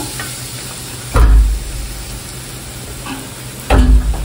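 Tempoyak stir-fry sizzling in a stone-coated wok as a wooden spatula stirs it. Two heavy low thumps stand out, about a second in and again near the end.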